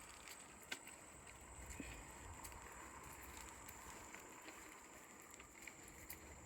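Near silence: faint outdoor background with a few light clicks and a thin, steady high-pitched tone.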